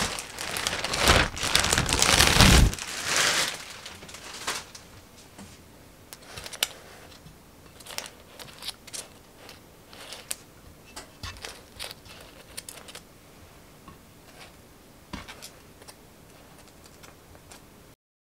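Plastic cling wrap crinkling as it is peeled off trays of proofed buns, loudest for the first three seconds or so. Then scattered light rustles and small taps as hands straighten the buns in their paper cups on metal baking trays.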